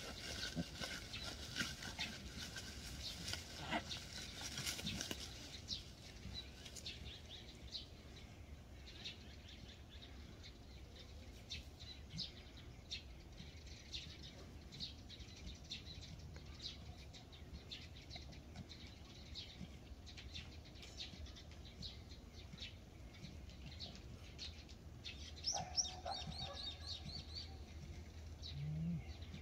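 Small birds chirping outdoors in short, scattered calls, with denser rustling in the first few seconds and a brief louder call about three-quarters of the way through.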